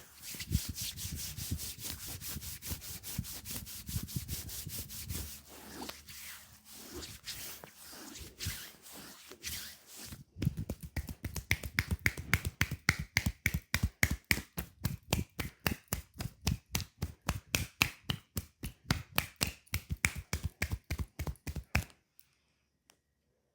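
Hands working over a bare leg in a massage: about ten seconds of fast rubbing strokes, then a steady run of sharp hand slaps or taps on the calf, about five a second, that stops shortly before the end.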